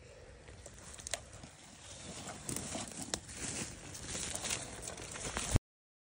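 Dry leaves and grass rustling and crackling as a Harris hawk moves over its kill, with scattered sharp crackles. The sound cuts off abruptly about five and a half seconds in.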